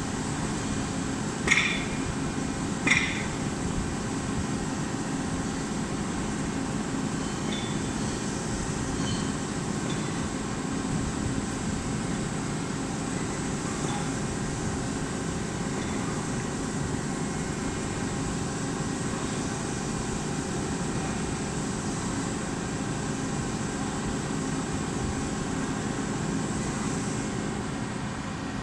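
CNC lathe running with a steady machine hum and constant tones, broken by two sharp metallic clinks about a second and a half and three seconds in, and a few faint ticks later.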